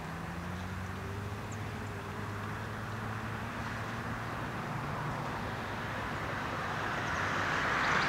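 A car approaching along the road: a low steady engine hum, with tyre noise that swells and grows louder toward the end.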